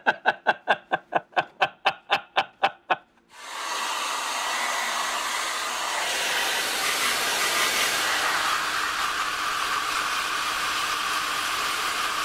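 A man laughing in quick, rhythmic bursts for about three seconds. Then, with a sudden start, a salon hood hair dryer runs with a steady airy hiss.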